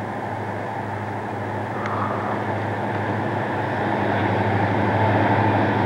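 Canadian National diesel freight locomotives approaching, their steady rumble building louder as they near.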